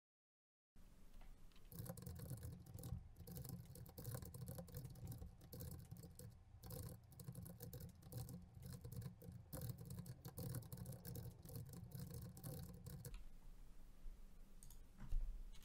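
Fast typing on a computer keyboard: a quick, faint run of key clicks that starts about two seconds in and stops a couple of seconds before the end.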